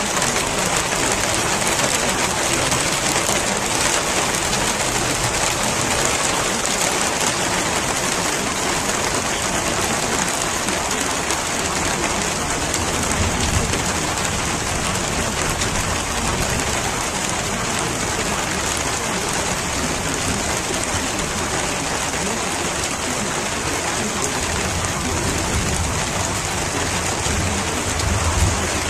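Steady rain falling, an even hiss, with a low rumble swelling up about halfway through and again near the end.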